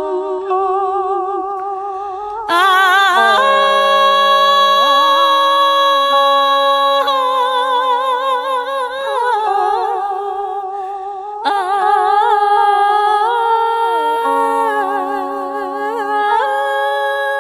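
Instrumental break of a slow Vietnamese song: a wavering melody of long held notes over sustained chords, swelling louder about two and a half seconds in and again past halfway.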